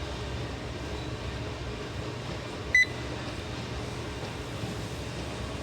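A single short electronic beep a little under halfway through, over a steady low rumble.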